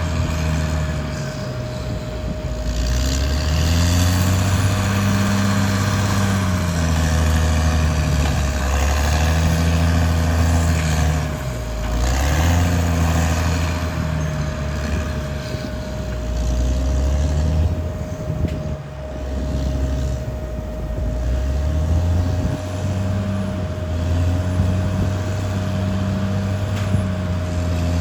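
Caterpillar D6R XL bulldozer running under working load, its diesel engine rising and falling in pitch every few seconds, with a steady whine throughout.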